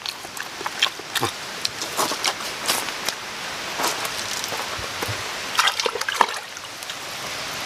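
Footsteps over leaf litter and the handling of things in a bag, a string of scattered clicks and knocks over a steady rushing hiss.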